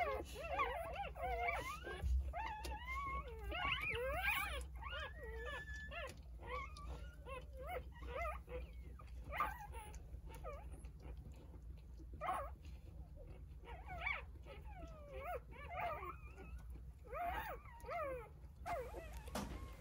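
Newborn Jindo puppies, three days old, squeaking and whimpering over one another: many thin, high, wavering cries that overlap in the first half and come more sparsely after.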